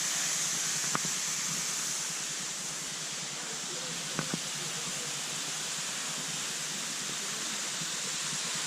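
Waterfall rushing, a steady, even hiss of falling water. There are a few short clicks about a second in and twice about four seconds in.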